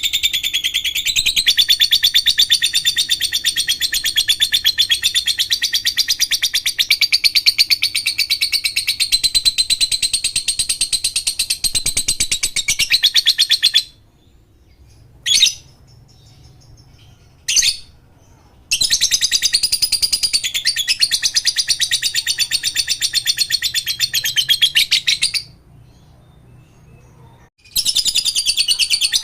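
Lovebird ngekek: long bouts of very fast, unbroken high chattering, the first about fourteen seconds long, then two short chirps, a second bout of about seven seconds, and a third starting near the end.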